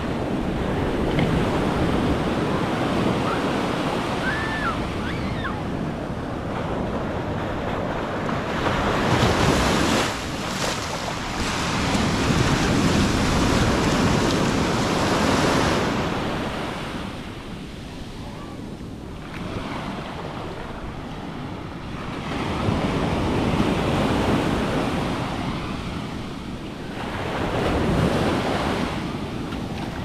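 Atlantic surf breaking and washing up a sandy beach in long swells of hiss and rush. It is loudest in the middle, drops to a lull a little past halfway, then surges twice more.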